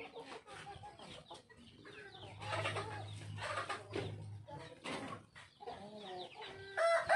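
Chickens clucking on and off, with a low steady hum for a couple of seconds midway. Near the end a rooster starts a loud, long crow.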